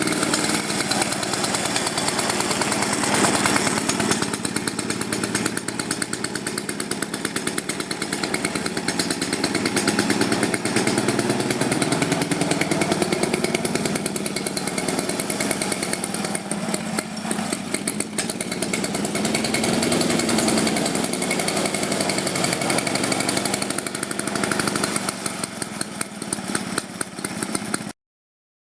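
The Villiers petrol engine of a 1957 Ransomes Minor Mark 7 lawnmower running steadily with a rapid firing beat. The sound cuts off abruptly near the end.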